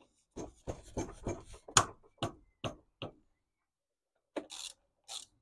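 Hand tools clicking and knocking on metal fittings while a part is bolted in, irregular strikes with the loudest about two seconds in, then a pause and two short scrapes near the end.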